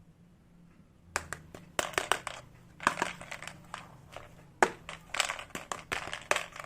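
Crinkly plastic packaging being handled and crushed, a burst of sharp crackles and clicks starting about a second in, followed by several more bursts.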